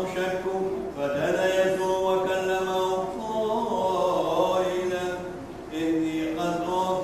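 A man's voice chanting the Gospel reading of an Orthodox service, in long held notes that step up and down in pitch, with a brief breath pause about five and a half seconds in.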